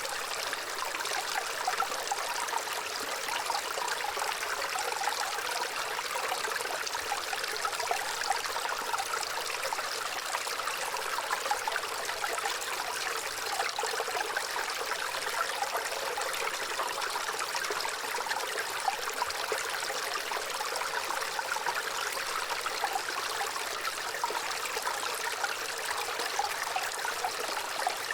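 Gentle running water, a small stream trickling and babbling steadily with fine, light splashing and no deep rumble.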